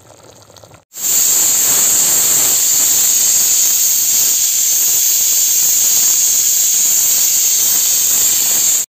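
Pressure cooker at full pressure venting steam through its whistle weight: a loud, steady hiss that starts abruptly about a second in and cuts off sharply near the end.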